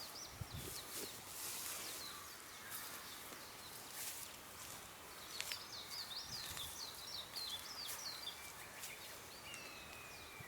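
Wild birds singing: a few high chirps, then a quick twittering run of notes in the middle, and a long, slightly falling whistle near the end, with faint scattered clicks and rustling.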